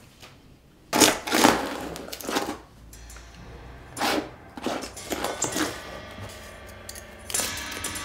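Scraping and scratching of a tool working thick, sand-laden paint on a canvas, in a few separate strokes about a second in, around four seconds in and once more just after. Near the end a steady ringing tone with several pitches comes in and holds.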